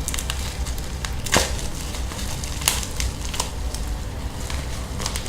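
A parcel's packaging being forced open by hand: irregular crinkling and tearing, with a few sharp cracks, the loudest about a second and a half in and again near the middle.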